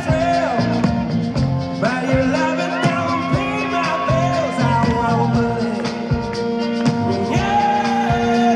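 Live rock band playing, a man singing over acoustic and electric guitars, bass and drums with a steady beat, heard from the audience at an outdoor concert.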